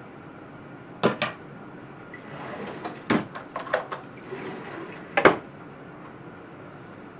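Kitchen handling clatter: sharp knocks and clinks of utensils and bakeware being set down and moved, two about a second in, a quick cluster between three and four seconds, and the loudest pair a little after five seconds, with soft rustling between.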